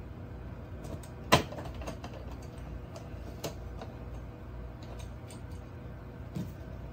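Small clicks and taps of a linear rail and its screws being handled and set onto a 3D printer's base, with a sharp click about a second in, another about three and a half seconds in, and a softer knock near the end.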